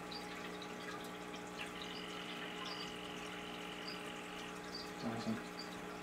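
Male green-and-black poison dart frog (Dendrobates auratus) giving its courtship call: one high, steady call about three seconds long, starting about one and a half seconds in. A steady low hum runs underneath, and a brief low sound comes about five seconds in.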